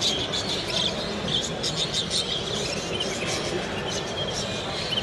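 Many caged birds chirping at once, short high calls coming irregularly over a steady murmur of a crowded hall.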